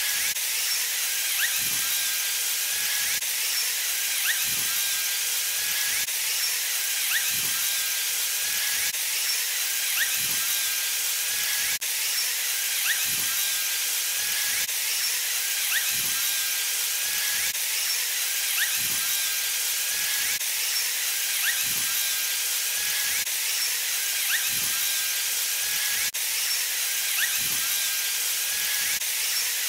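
A steady, even hiss with no low end, with faint thin high tones and small rising chirps in it.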